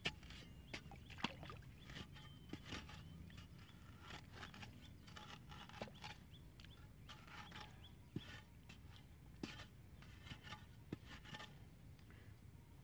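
Spade blade scraping and chopping into wet mud at the rim of a freshly dug hole: a run of short, faint scrapes and soft knocks.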